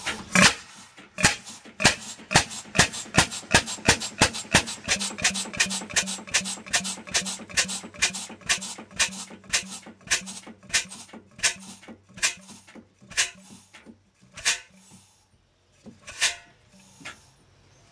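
Large single-cylinder horizontal stationary gas engine with a heavy flywheel, firing in sharp regular exhaust pops about three a second. Later the firing slows and grows irregular, down to a few scattered pops near the end.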